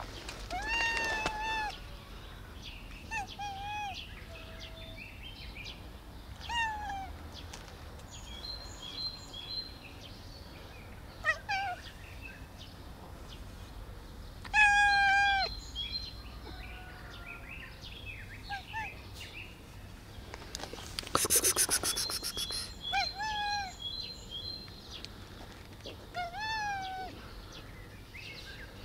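Long-haired black cat meowing, about seven short meows that rise and fall in pitch, spaced a few seconds apart; the loudest comes about fifteen seconds in.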